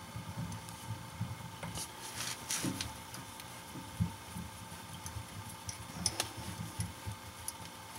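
Brass plumbing fittings being handled and threaded together by hand: scattered light knocks and a few sharp clicks, over a faint steady hum.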